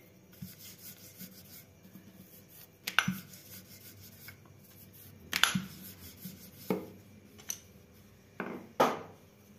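Wooden rolling pin rolling out dough on a marble board: soft rubbing broken by about five sharp knocks, the loudest about three, five and a half, and nine seconds in.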